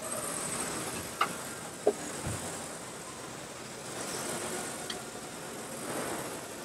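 Automated factory machinery running with a steady hiss, broken by a few sharp clicks and a short low knock in the first half and another click near the end.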